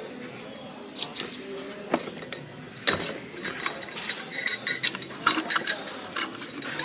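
Tableware clinking as pieces are handled and knocked together: a few scattered clinks, then a quick run of sharp, briefly ringing clinks starting about three seconds in.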